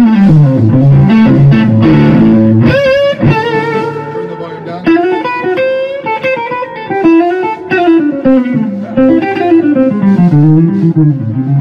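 Les Paul-style electric guitar fitted with Fishman Fluence humbuckers, played through an amp: bluesy single-note lead lines with string bends and vibrato and a quick flurry of notes about three seconds in.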